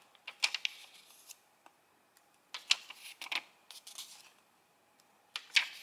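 Paper pages of a small bound pocket diary being turned by hand, crackling and rustling in three bursts.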